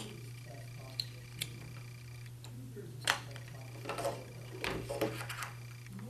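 A USB adapter, its plugs and cables being handled, clicking and rattling: a few single sharp clicks in the first half, then bursts of scraping clatter, over a steady low hum.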